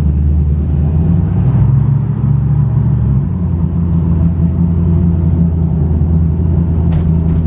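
Fox-body 1993 Mustang GT's 5.0 V8, built with a B303 cam and GT40 heads and breathing through BBK headers, an off-road H-pipe and Magnaflow Competition exhaust, running as the car creeps through a parking garage. The low exhaust note holds steady, swelling a little about two seconds in.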